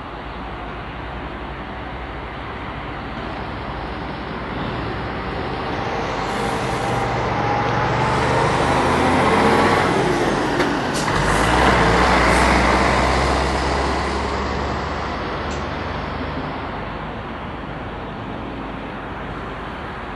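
A heavy vehicle passing close by. Its engine noise builds for several seconds, is loudest about halfway through with a low rumble and a falling whine, then fades away.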